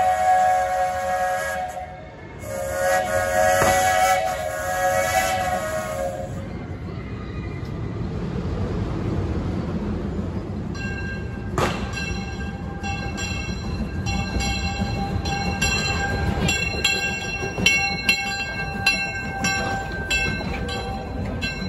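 Steam whistle of the narrow-gauge steam locomotive Judy K blowing two long chord blasts, the second starting just after the first ends. The locomotive then approaches and passes close with a steady rumble, and from about halfway a bell rings in regular strokes.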